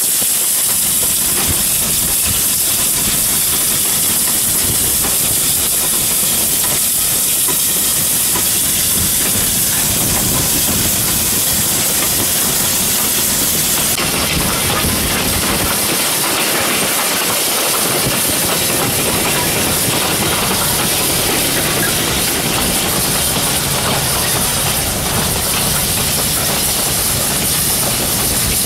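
Ex-Victorian Railways J class steam locomotive J515 running with a train, heard from a vehicle driving alongside as a steady, loud hiss. About halfway through, the top of the hiss drops away.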